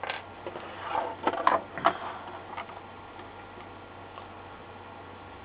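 Light clicks and taps from handling a circuit board and pulling capacitors off it while desoldering with a soldering iron, a quick run of them over the first two seconds or so.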